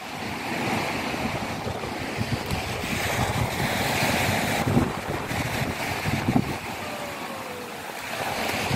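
Small sea waves breaking and washing on the shore below, a steady surf hiss that swells and fades, with gusts of wind rumbling on the microphone.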